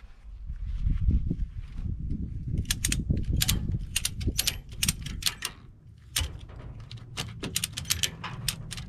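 Ratchet tie-down strap being cranked tight: runs of sharp metallic clicks from the ratchet, beginning a few seconds in and coming in quick groups with short pauses. Low thumps and rumble from handling the strap and truck come before them.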